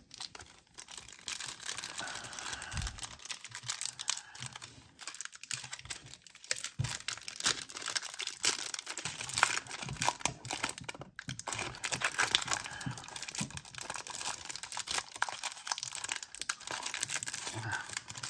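Foil wrapper of a 1991 Upper Deck football card pack being torn open and crinkled by hand, a continuous run of crackles and rips.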